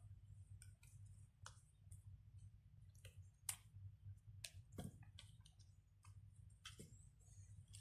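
Faint, irregular clicks and taps of small fidget toys and their packaging being handled, with two slightly louder taps around the middle.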